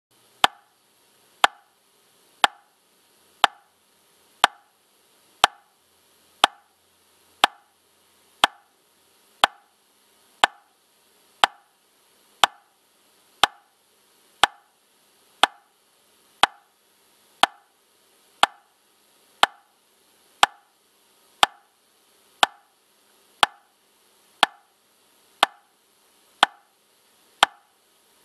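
Metronome clicking steadily at 60 beats per minute: one short, sharp click every second, each of the same loudness.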